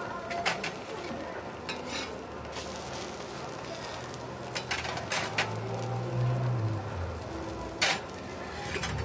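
Metal spatula clicking and scraping on a flat steel griddle several times over food frying with a steady sizzle. The sharpest click comes near the end.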